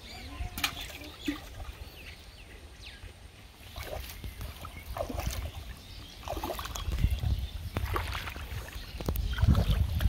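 Bare feet wading through shallow water, with small irregular splashes and sloshes, over a low rumble that grows louder in the second half.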